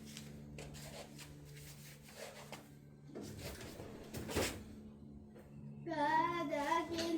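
Scattered light metallic clicks of hand tools being handled, with a sharper knock about four seconds in. Near the end a voice hums a wavering tune.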